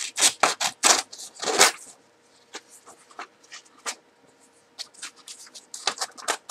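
A homemade stainless-steel utility knife, ground from a butter knife, slicing through material in a cut test. It makes a quick series of short, sharp rasping strokes, several close together in the first two seconds, then fewer and more spaced out.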